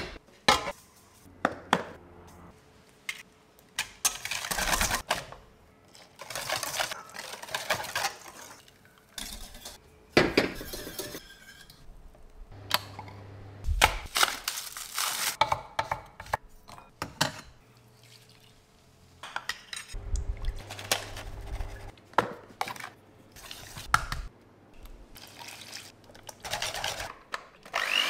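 A string of separate kitchen handling sounds: metal utensils clinking and scraping against saucepans and bowls, with knocks and rustles in between and short quiet gaps.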